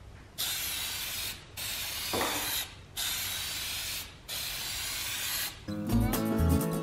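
Aerosol spray paint can hissing in four bursts of about a second each, with short pauses between them as the nozzle is pressed and released. Acoustic guitar music starts near the end.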